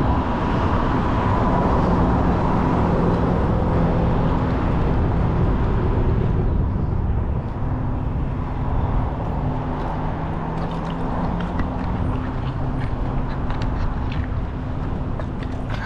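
Road traffic at a busy intersection: steady engine and tyre noise of passing cars, easing a little after about six seconds, with a few faint clicks in the last few seconds.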